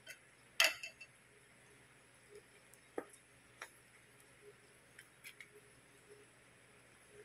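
Paper cream carton being squeezed and handled as thick chilled cream is pressed out of it, giving a few scattered crinkles and clicks. The loudest is a brief crackle in the first second.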